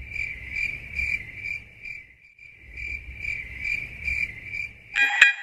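Cricket chirping steadily, about three chirps a second with a brief pause partway through, over a faint low rumble. Near the end, plucky percussive music notes come in.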